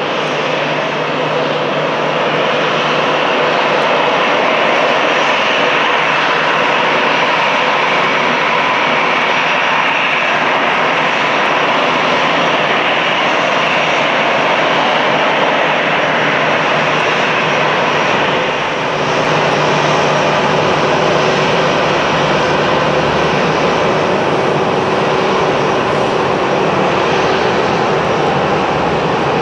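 Airbus A320 jet engines running at taxi power, a steady whine and rush of noise with a brief slight dip about two-thirds of the way through.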